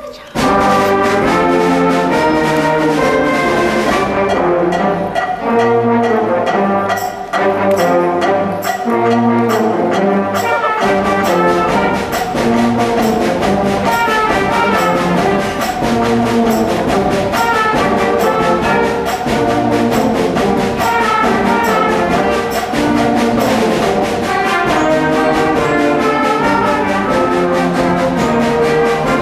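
School concert band playing: brass and woodwinds over percussion, coming in loud and all at once, with a steady percussion beat joining a few seconds in.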